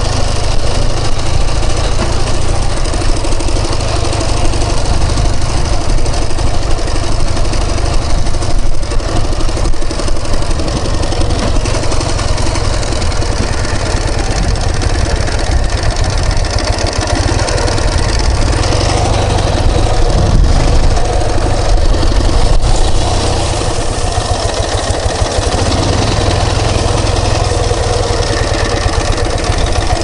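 Ural Tourist sidecar motorcycle's flat-twin engine running steadily while riding over a rough dirt track.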